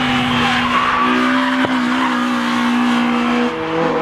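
Car on a race circuit, its engine holding a steady high note while the tyres squeal and skid; the engine note drops away about three and a half seconds in.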